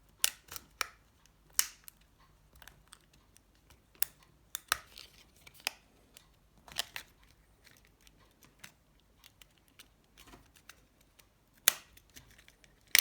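Plastic snap clips of a Nokia 7373 phone's housing being pried open with a plastic card: a run of irregular sharp clicks and snaps, with the loudest snap near the end.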